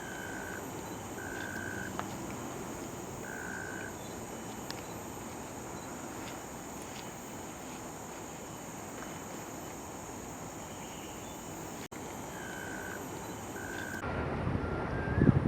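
Outdoor nature ambience with a steady high-pitched insect drone, and five short, flat, whistle-like notes of the same pitch: two near the start, one a few seconds in, and two near the end.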